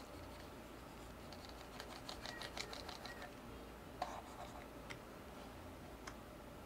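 Faint computer mouse and keyboard clicks over a low steady hum: about a second of quick ticking, then a few single sharp clicks, the loudest about four seconds in.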